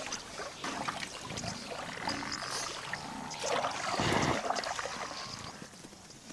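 Cape buffalo in a muddy lagoon: wet squelching and sloshing of mud and water, loudest about four seconds in as it lifts its head.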